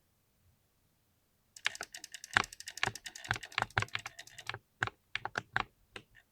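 Typing on a mechanical keyboard: a fast flurry of key clicks begins about a second and a half in, then slows to separate, spaced keystrokes near the end.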